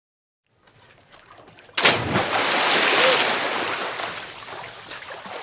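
A swimmer diving into water: a few faint splashes, then a sharp, loud splash of entry a little under two seconds in, followed by churning, bubbling water that slowly fades over the next few seconds.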